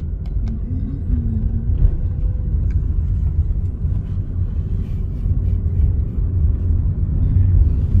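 Car in motion heard from inside the cabin: a steady low rumble of engine and road noise.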